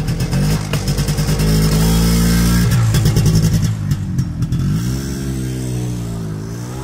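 Motor vehicle engine revving up and down, its pitch rising, dropping about four seconds in and rising again near the end, with a rapid rattling clatter over the first half.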